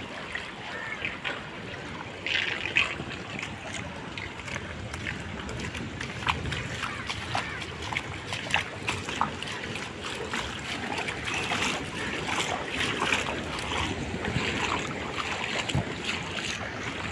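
Seawater surging through a flooded lane, rushing and splashing, with many small splashes throughout and a louder splash about two seconds in.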